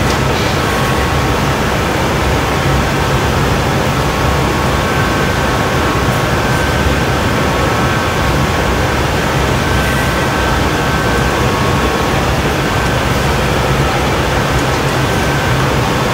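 Steady, loud roar of a glassblowing studio's gas-fired furnaces and ventilation running without change.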